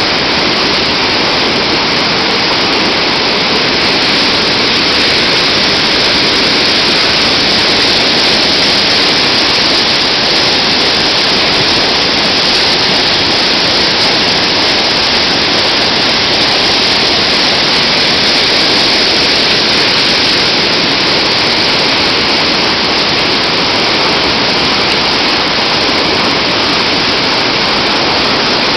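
Whitewater of a mountain river in spring snowmelt flood rushing through rapids: a loud, steady rush that sounds like a freight train.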